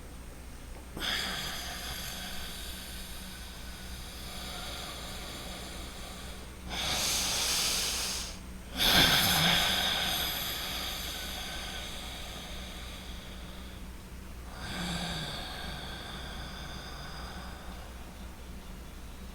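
Loud, noisy breathing through the nose: four slow breaths drawn in and pushed out, with short pauses between them. The loudest starts about nine seconds in and fades away over several seconds.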